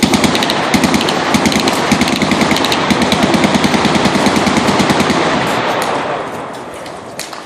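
Machine-gun fire: a long, rapid, even string of automatic shots that tapers off about six seconds in.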